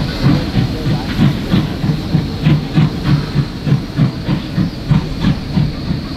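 Steam locomotive working slowly under load, its exhaust chuffing in an even beat of about three a second, with the steady hiss of steam venting from open cylinder drain cocks.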